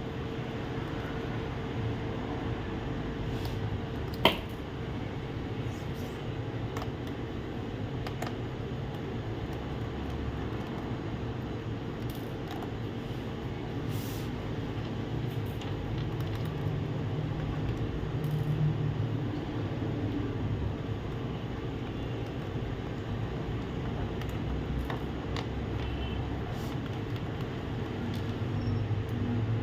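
Scattered small clicks and handling noises of screws being removed from a laptop's bottom cover with a screwdriver, with one sharp click about four seconds in, over a steady hum.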